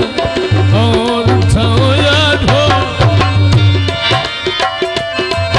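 Live folk music: a harmonium's steady reed tones under fast hand-drum strokes on dholak and tabla. A wordless, wavering vocal line slides over it in the first half.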